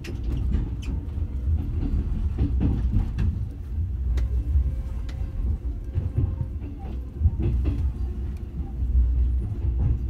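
Passenger train running, heard from inside the carriage: a steady low rumble with scattered irregular clicks and knocks.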